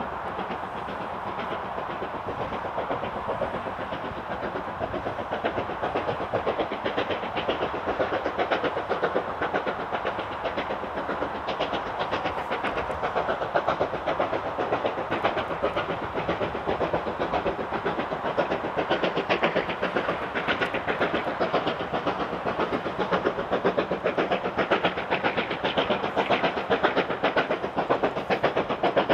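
BR Standard 'Britannia' Pacific 70013's two-cylinder steam exhaust beating quickly and evenly as the locomotive works hard up the steep Beattock incline with a loaded train, growing louder as it draws nearer. A constant roar of motorway traffic runs underneath.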